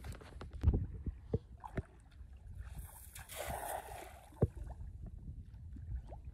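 Water sloshing and splashing as a person wades chest-deep through muddy floodwater, with a few dull knocks in the first two seconds and a longer splash about three seconds in.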